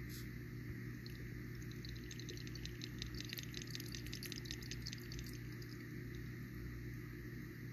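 A land crab blowing bubbles at its mouthparts, heard as a fine crackling fizz of popping bubbles from about two seconds in until about five and a half seconds, over a steady low hum.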